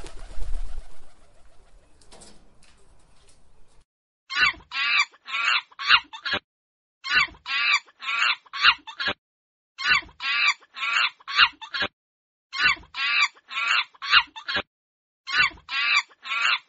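A bird's calls, quick runs of five or six short high calls, with the same run repeating about every three seconds. A short burst of noise at the start fades into a faint hiss before the calls begin.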